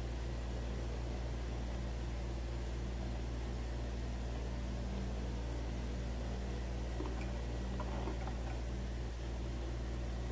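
Steady low electrical hum, with faint rustling of cloth being handled and sewn by hand around the middle.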